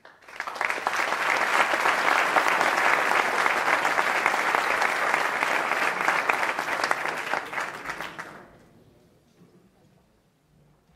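Applause from a room of people: many hands clapping at once. It starts suddenly, holds steady for about eight seconds, then dies away.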